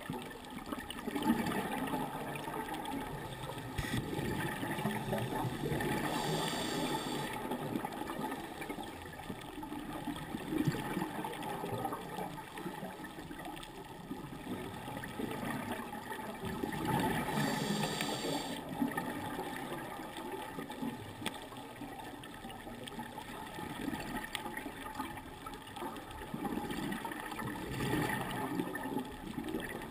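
Scuba diver breathing through a regulator underwater: bursts of exhaled bubbles gurgling every several seconds, with a short hissing inhalation twice, about eleven seconds apart.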